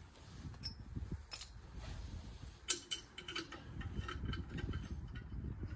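Light metal clicks and clinks, a few scattered taps, as a muffler and its clamp are pushed and worked onto a garden tractor engine's exhaust pipe by hand, over a low rumble.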